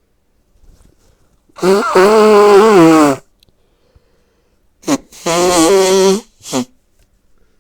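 Two loud, drawn-out non-speech vocal noises from a man, the first about one and a half seconds long with a falling pitch, the second a little later with a short catch before it and a brief one after.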